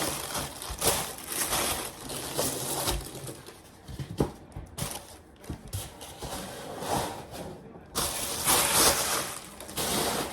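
Plastic packaging crinkling and rustling in the hands, with small clicks and knocks of plastic parts being handled; the loudest rustling comes near the end.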